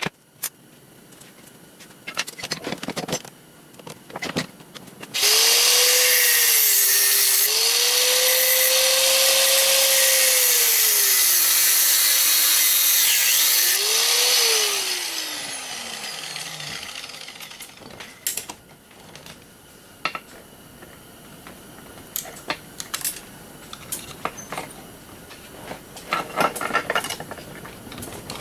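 A handheld power tool runs for about nine seconds, its motor pitch dipping and recovering as it works, then winds down with a falling whine. Scattered knocks and clicks come before and after.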